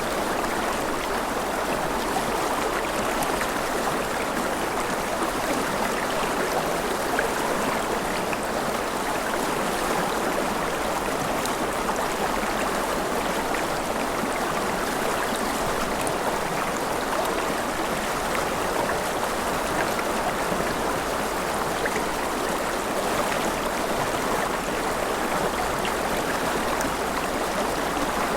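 River water flowing and burbling in a steady, unbroken rush, strongest in the middle range, with faint splashes and droplets above it.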